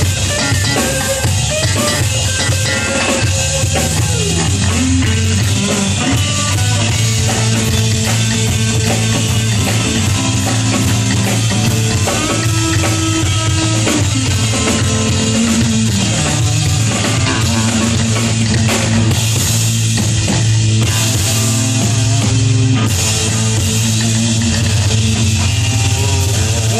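Live rock band playing: drum kit and electric guitar with bass, loud and steady throughout.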